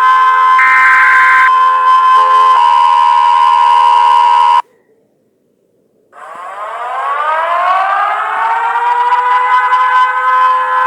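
Emergency alert alarm: a steady, loud multi-tone alarm with a higher tone pulsing once near the start, cutting off suddenly after about four and a half seconds. After a second and a half of silence, a siren winds up, rising in pitch and levelling off into a steady wail.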